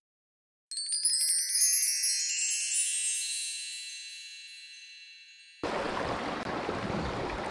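A shimmering chime sound effect: a quick cascade of high, tinkling bell tones that rings out and fades away over about five seconds. About two seconds before the end, the steady rush of a mountain stream cuts in.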